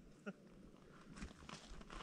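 Near silence: faint open-air ambience with a few soft clicks.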